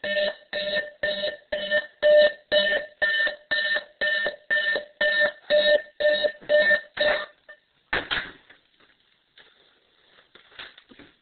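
Electronic alarm clock beeping, about two beeps a second, cutting off about seven seconds in. One short loud noise follows about a second later, then faint rustling.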